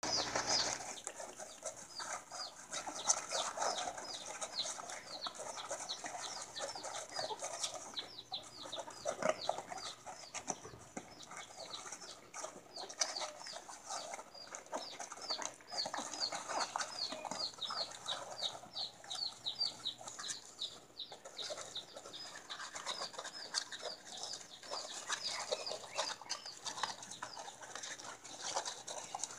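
A bird calling over and over in short, high, falling chirps, about three a second, with fainter, irregular calls lower in pitch behind it.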